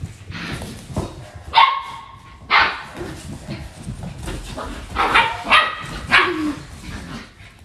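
Poodle puppies barking and yipping in play: several short, high barks, one drawn out for most of a second about a second and a half in.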